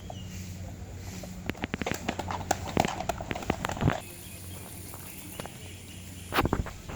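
A quick clatter of hard knocks and clicks for about two seconds, then a single heavy thud near the end, over a steady low hum.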